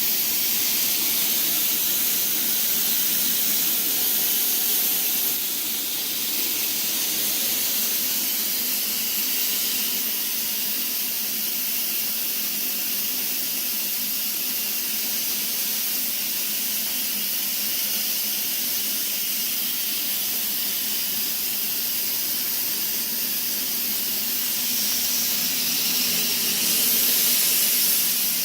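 Dry fog sterilization fogger running, a steady hiss of fog being forced out with a faint low hum underneath.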